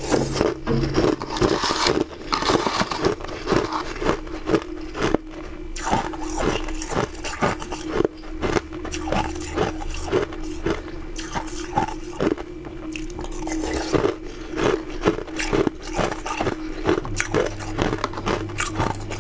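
Chunks of ice being bitten and chewed, a fast run of sharp crunches at about three a second.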